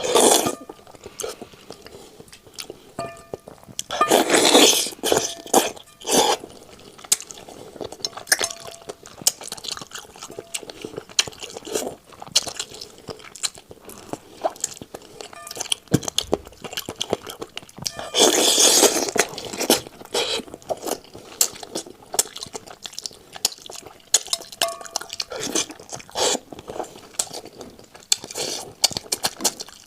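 Close-miked chewing and crunching of cooked chicken: irregular crisp crackles and clicks with several louder bites, the loudest about four seconds in and again just past halfway.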